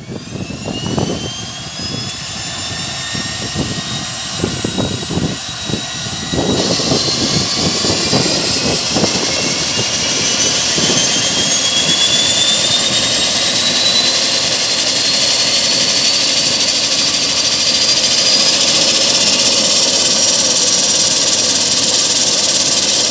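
Pratt & Whitney PT6A turboprop of an Air Tractor AT-502XP starting on ground power: a turbine whine climbing steadily in pitch as the starter spins it up, a sudden jump in loudness about six and a half seconds in as the engine lights, then the whine keeps rising and settles into a steady run with the propeller turning.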